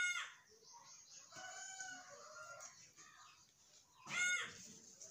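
Chickens calling: two loud, short calls about four seconds apart, with a fainter, longer call between them.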